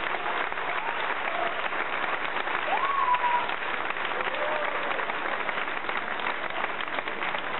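Theatre audience and cast applauding: steady, dense clapping from many hands, with a few voices calling out over it, one call rising about three seconds in.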